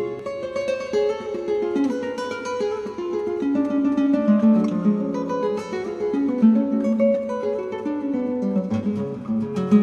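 Background music: acoustic guitar plucking a melody with chords, notes changing steadily throughout.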